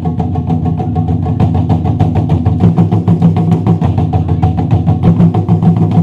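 Japanese taiko drums (wadaiko) played by an ensemble in a fast, dense, unbroken stream of strikes.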